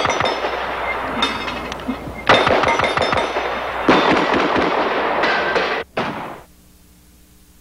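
Rapid gunfire in several long bursts, each starting abruptly. The shooting cuts off about six seconds in, leaving a faint hum.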